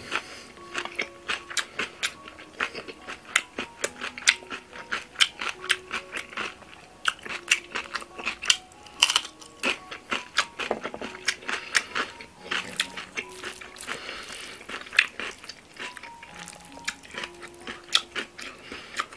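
Close-miked crunchy chewing of young-radish kimchi bibimbap: a rapid run of crisp crackles and bites. Soft background music plays underneath.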